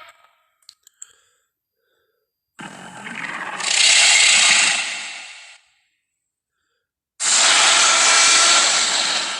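Two long, breathy hisses from the Tarbosaurus creature sound effects, each lasting about three seconds with no clear pitch, the first swelling louder partway through; two faint clicks come before them.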